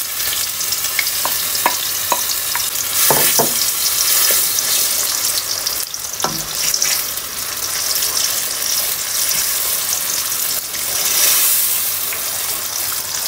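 Blended onion, tomato and almond paste sizzling as it fries in hot oil in a frying pan, stirred and scraped with a wooden spoon. A few light knocks and taps of the utensils against the pan come in the first half.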